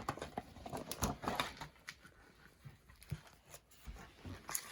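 Soft rustling and scattered light clicks of paper being handled, like a picture book's page being turned, busiest in the first second and a half and then a few isolated ticks.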